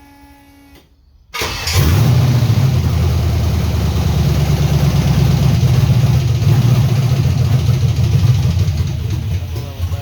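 LS V8 engine in a 1979 Ford F-150 dump truck catching about a second and a half in and running rough and uneven, misfiring; the owner wonders whether the cylinders are flooded. A faint steady whine comes before it starts.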